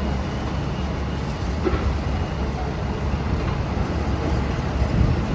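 Heavy diesel construction machinery running with a steady low rumble.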